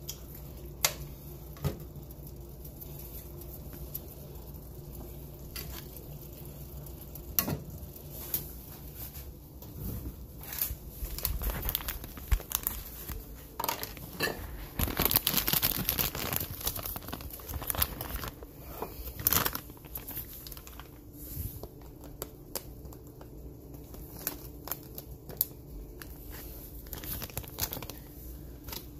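Rustling and crinkling with many scattered sharp clicks and knocks, growing denser about halfway through, over a steady low hum.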